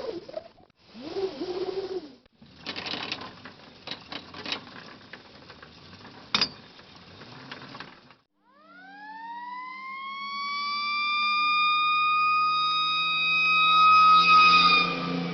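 Crackling and snapping noise, typical of burning flames. About eight seconds in, a fire-truck siren winds up, rising in pitch to a steady wail that keeps getting louder.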